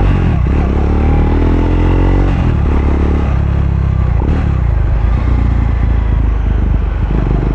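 Triumph Speed 400's single-cylinder engine through a Muff City slip-on exhaust, bassy, riding under load with the revs climbing and then changing as the bike shifts gear.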